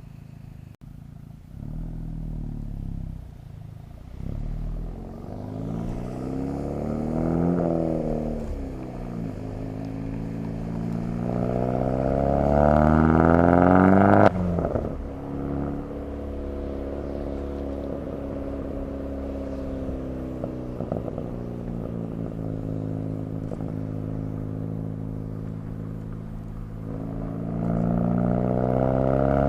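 Turbocharged Chevrolet Cobalt SS engine and Hahn turbo-back exhaust accelerating with rising pitch. It drops sharply off throttle with a click about midway, runs steadily for a while, then climbs again near the end.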